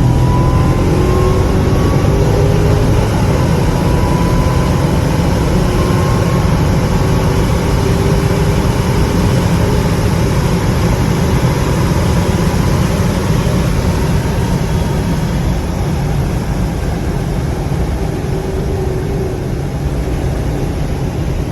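Supercharged 6.2-litre V8 of a 2021 Dodge Charger SRT Hellcat Redeye accelerating in a light pull, heard from inside the car. The engine pitch climbs over the first few seconds, then settles into a steady drone with road noise at freeway speed, easing a little near the end.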